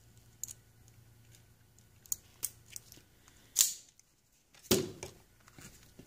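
Wire insulation being stripped with a hand tool: a few light clicks of the tool's jaws, then two short snipping, tearing sounds about a second apart as about a quarter inch of insulation is cut and pulled off the end of a small wire.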